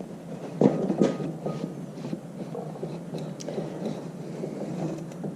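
Irregular light scrapes and metallic clinks of hand tools and metal parts being worked by hand: the rear axle bearing cap being pried and pulled off the tractor's axle housing.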